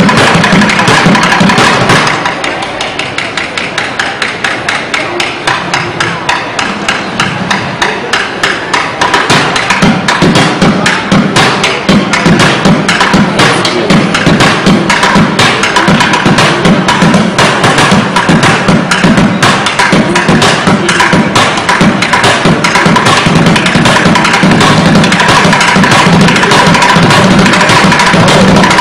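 Upturned plastic buckets played as a drum kit with drumsticks: a fast, continuous run of strikes. It drops quieter about two seconds in and builds steadily back to full loudness over the next several seconds.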